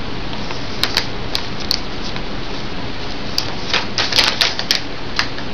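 Plastic food packaging crackling and crinkling in the hands as it is turned over. The crackles come singly at first, then in a quick cluster about four seconds in, over a steady hiss.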